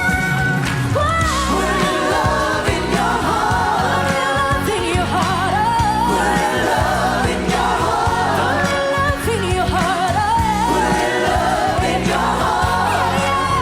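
Worship song with singing, likely a choir, over a band accompaniment with steady bass.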